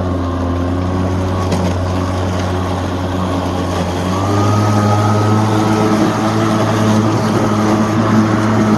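Greenworks 80V 21-inch cordless lawn mower running, its electric motor and spinning blade giving a steady hum with a high whine over it. Mowing through tall grass, the pitch sags slightly and then picks up again about four seconds in, as it gets louder.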